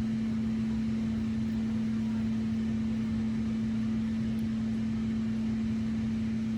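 A steady hum at one constant low pitch over an even background hiss, unchanged throughout.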